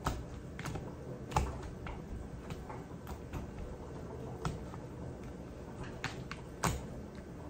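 Hands working seasoning into raw chicken breasts in a clear plastic tub: irregular light clicks and taps against the plastic, a few a second, with a sharper knock about a second and a half in and another near the end.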